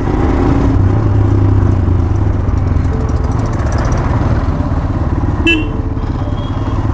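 Motorcycle engine running steadily at low speed while riding, with a short horn toot about five and a half seconds in.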